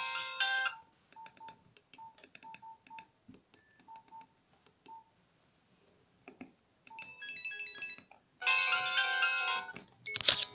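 Keypad mobile phone tones: a ringtone melody cuts off, then a run of short single key beeps with button clicks, a brief melody snippet, and a loud ringtone melody starting about eight and a half seconds in.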